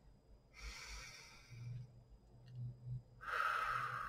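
A woman breathing deeply: a slow, soft inhale through the nose, then about three seconds in a strong, long exhale as she pushes all the air out of her belly.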